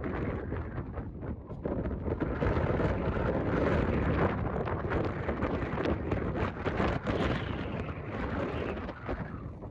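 Wind buffeting the microphone in uneven gusts, a rumbling rush with no distinct events.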